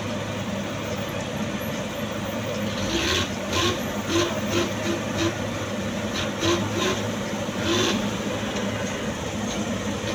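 Asphalt paver and tipper truck engines running with a steady low hum. Between about three and eight seconds in, about ten short, sharp noises come in quick succession over it.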